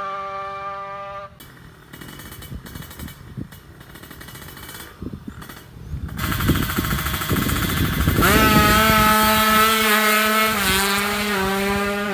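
Two-stroke Kawasaki Ninja drag-bike engine running and being revved, held at steady revs with stepwise changes in pitch, broken by abrupt cuts about a second in.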